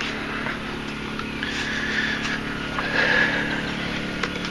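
Steady low mechanical hum of a running motor, with faint distant voices and a few light knocks over it.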